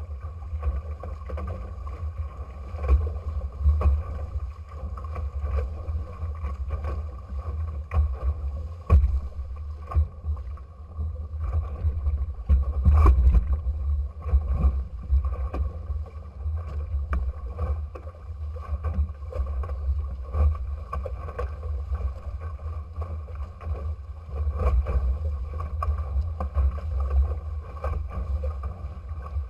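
Water rushing and splashing along the hulls of a Futura trimaran under sail, heard close to the water over a steady low rumble, with scattered knocks and splashes that are loudest about halfway through.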